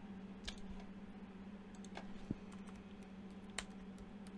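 A handful of scattered clicks from a computer keyboard, spaced about a second apart, as numbers in a file are edited, over a steady low hum.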